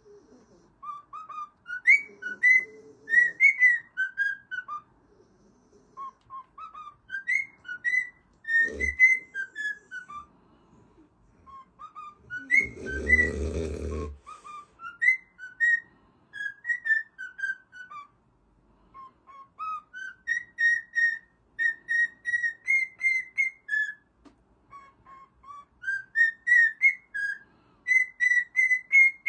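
Runs of short, high whistled notes, a few a second, stepping up and down in pitch in a tune-like pattern. There is a thump about nine seconds in and a brief noisy burst about thirteen seconds in.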